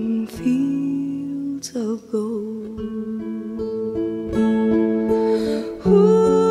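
Acoustic guitar playing a slow song, with a singing voice holding long notes.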